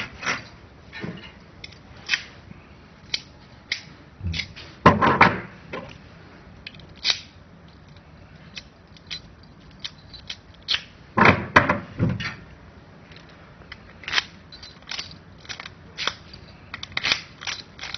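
A metal car key being put into and turned in a car lock set: scattered sharp clicks and clacks, with louder rattling knocks about five seconds in and again about eleven to twelve seconds in.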